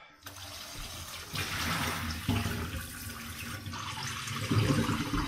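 Kitchen tap turned on, water running steadily into a frying pan in a stainless steel sink; the flow starts just after the start and grows fuller about a second in.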